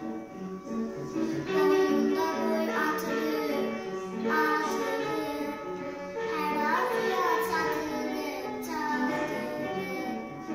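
A young girl singing a song with musical accompaniment.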